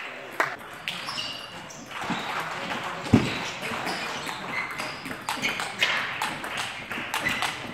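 Table tennis rally: the plastic ball clicking back and forth off rubber paddles and the table, ringing in a large hall, with a louder thud about three seconds in.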